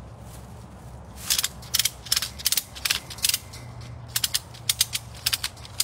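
Rapid ratcheting clicks in short bursts, two to three a second, starting about a second in, with a brief pause near the middle.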